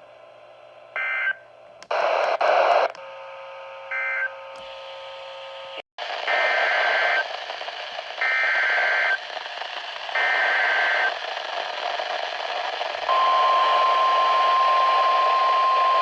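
Emergency Alert System SAME data bursts over weather-radio static: a few short buzzy data chirps early on, then three even one-second header bursts about a second apart. These are followed near the end by the steady 1050 Hz NOAA Weather Radio alert tone that announces a new warning.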